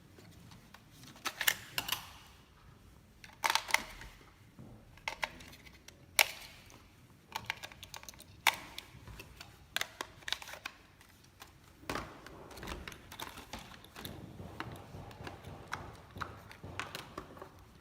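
Irregular sharp plastic clicks and taps, some in quick clusters, from handling a toy RC car and its remote controller.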